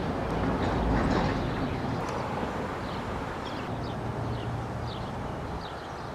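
Outdoor street ambience: a steady low rumble that swells about a second in, with small birds chirping in short, high, falling notes.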